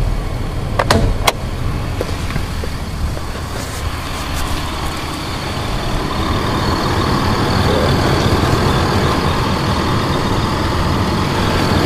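2005 Toyota Highlander's V6 engine idling steadily. Two sharp clicks come about a second in, as the hood release lever is pulled.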